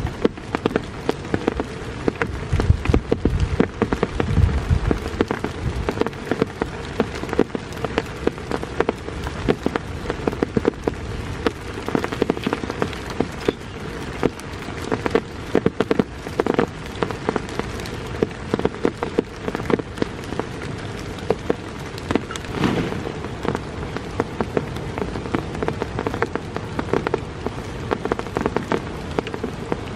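Heavy rain falling, with a dense, irregular stream of drop hits on a surface and a few heavier, deeper hits about three to five seconds in.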